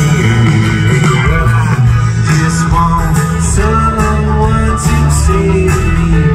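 Live band playing through an outdoor stage PA, with acoustic and electric guitars over drums, heard from out in the crowd.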